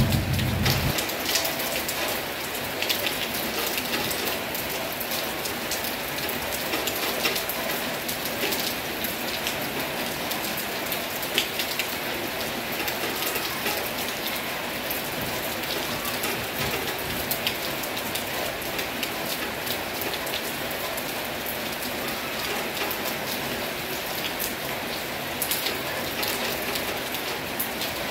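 Heavy rain falling steadily, with sharp individual drop ticks now and then. A low rumble fades out about a second in.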